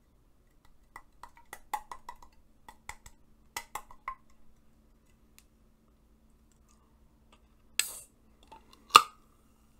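Fingers tapping and flicking at the top of an aluminium soft-drink can, a quick run of light metallic clicks. Near the end, with the can held to the mouth, a short hiss and then a sharp metallic pop as the can's tab is snapped open.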